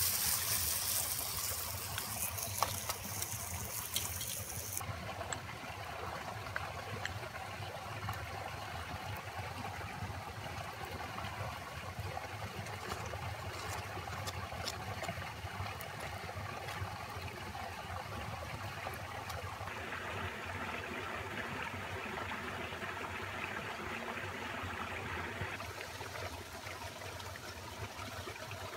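Steady running water of a stream. For the first five seconds a high sizzling hiss from flatbread frying in a skillet over campfire coals lies over it, then cuts off suddenly.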